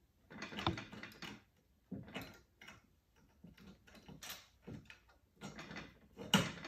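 Small plated metal parts of a Hurst shifter clicking and knocking as they are handled and fitted onto the shifter body: a string of short, separate clicks with brief gaps, the sharpest near the end.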